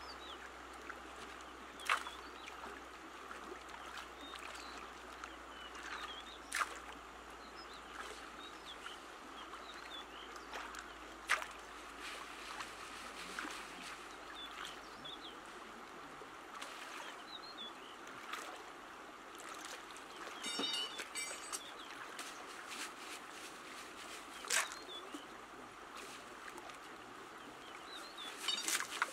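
Shallow river water trickling and sloshing as river gravel is washed by hand in a round sieve for gems. A sharp click or knock comes every few seconds, and small bird chirps sound throughout, with a short rapid trill about two-thirds through.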